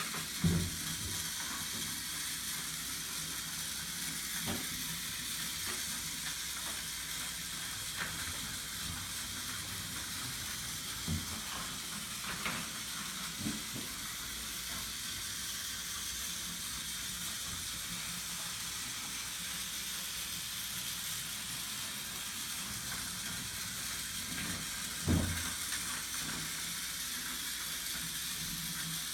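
Battery-powered toy train running along its track with a steady hissing whir, broken by a few soft knocks.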